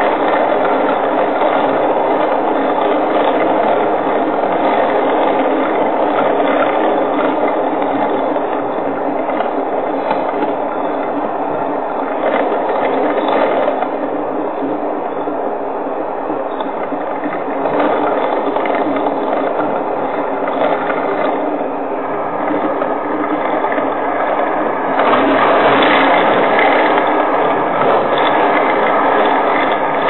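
Storm wind and heavy rain in a steady noisy rush, with a dense rattling crackle running through it; it eases a little midway and grows louder about 25 seconds in.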